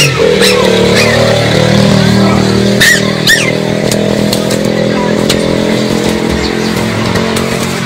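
A loud, steady droning hum holding several pitches at once, with short high chirps and squeaks scattered through it, the strongest pair about three seconds in.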